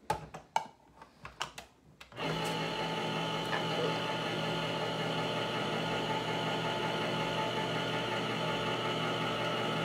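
Electric can opener: a few light clicks, then about two seconds in its motor starts and runs with a steady hum, cutting the can.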